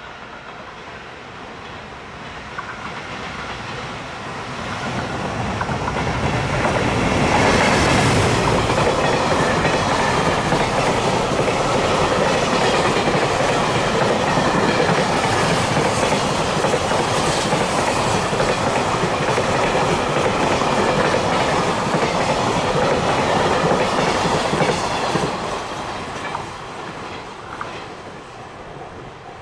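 Container freight train hauled by a JR Freight EF510 electric locomotive passing: the rumble and clatter of wheels on the rails build up over several seconds, stay loud while the container wagons go by, then fade away near the end.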